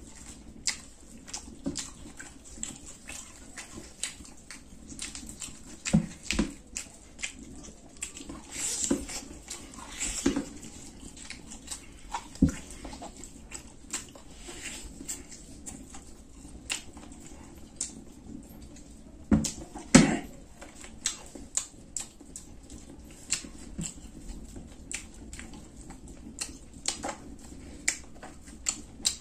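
Close-up eating sounds of gnawing and sucking meat off cooked buffalo head bones by hand: irregular wet smacks, slurps and small crunches, a few of them much louder than the rest.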